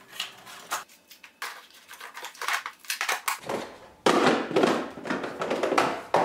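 Clear plastic small-parts organizers and a plastic divider being handled and set into a DeWalt ToughSystem 2.0 tool box: a run of plastic clicks and knocks, busiest over the last two seconds.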